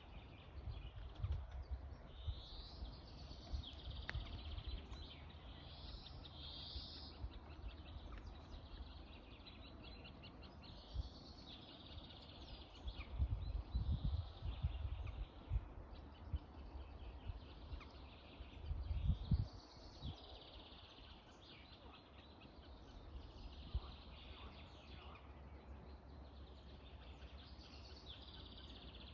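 Birds calling, high calls repeating every couple of seconds, over low rumbling bumps on the microphone that are loudest around the middle.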